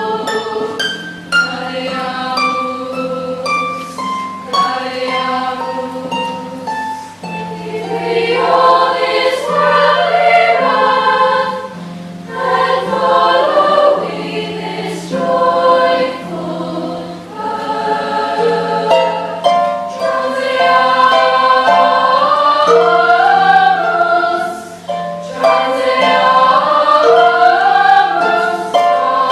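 Girls' choir singing in several parts, accompanied by a Lyon & Healy Style 85 CG concert grand pedal harp plucking steady notes and chords beneath the voices.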